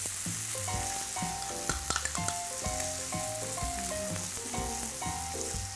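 Tomahawk ribeye searing on a hot griddle, with a steady sizzle as garlic herb butter is spooned onto it and melts into the pan. A tune of background music plays underneath.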